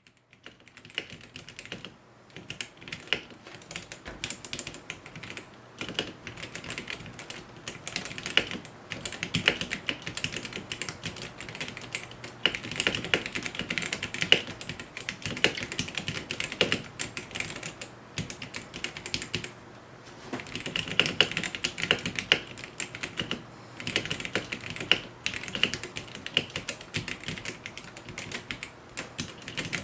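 Typing on a Gamakay K87 mechanical keyboard with Gateron Black linear switches: fast, continuous keystroke clicks and clacks, with a few short pauses.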